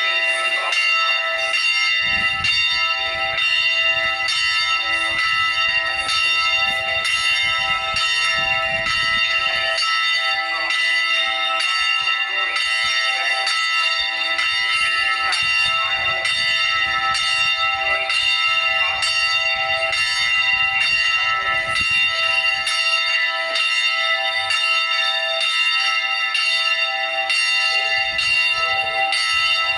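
Carillon bells ringing: a steady run of struck notes, about two strikes a second, each bell's tone ringing on and overlapping the next.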